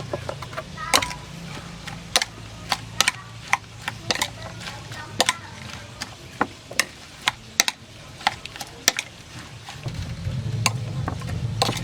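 Kitchen utensils clinking and scraping against cookware during stirring, a series of irregular sharp clicks, some of them ringing briefly. Under them runs a low steady hum that gets louder near the end.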